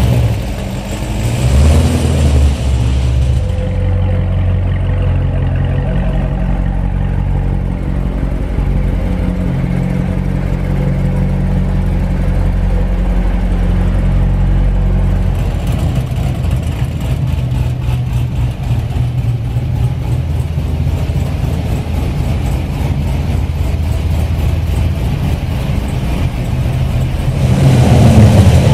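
Chevrolet Corvette V8 engines running in a parking garage. There is a short rev about a second in, then a steady idle. About halfway through the sound switches to a choppier, pulsing idle, and the revs start to climb near the end.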